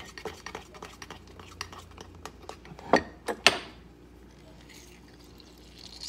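Metal spoon stirring a thick lemon glaze in a ceramic mug, clinking and scraping against the sides in quick small taps, with a few louder clinks about three seconds in. After that it quiets to sparse light taps.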